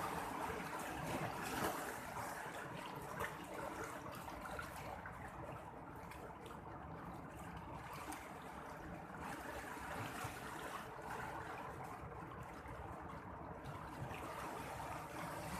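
Sea water washing and lapping in a steady rush of water noise, which eases and swells again a couple of times.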